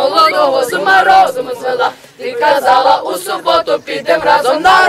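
A group of young voices singing or chanting together without accompaniment, broken by a short pause about two seconds in.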